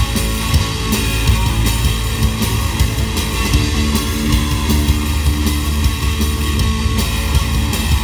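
Live rock trio playing an instrumental passage: electric guitar, bass guitar and drum kit together, with steady drum hits under a held guitar note a few seconds in.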